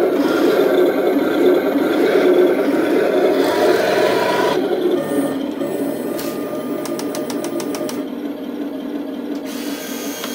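Radio-controlled model tank running, a steady mechanical whirring hum from its small electric motors and gearing. It eases a little partway through. Near the end comes a quick run of about eight clicks a second, lasting roughly a second.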